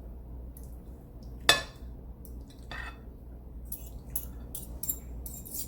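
Metal utensils clinking against a plate while eating: a sharp clink about a second and a half in, another near three seconds, then a run of small clicks.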